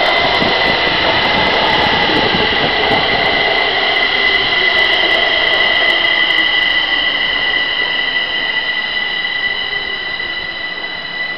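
Kaohsiung MRT Siemens metro train pulling into an elevated station platform, a loud running rumble with a steady high-pitched squeal over it. The sound eases off gradually in the last few seconds as the train slows.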